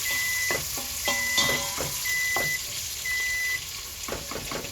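Bacon sizzling in the pot as it is stirred, with utensil knocks and scrapes against the pot. A short high beep sounds about once a second, four times, then stops.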